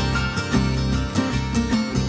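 Instrumental background music with pitched notes in a steady rhythm.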